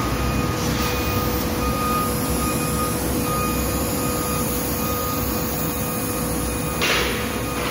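Bodor CNC laser cutting machine running while it cuts sheet steel: a steady machine hum with a constant whine, and a short hiss about seven seconds in.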